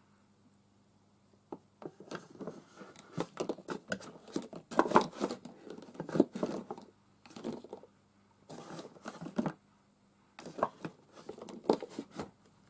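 Irregular rustling and crinkling with small clicks, in bursts, starting about a second and a half in, as of paper or plastic being handled.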